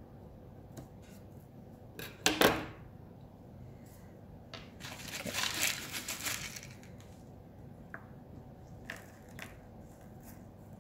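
Scissors snipping through a strip of green leaf, with one sharp snip about two seconds in. Then a couple of seconds of rustling and crinkling, and light clicks of small stones being set down on card.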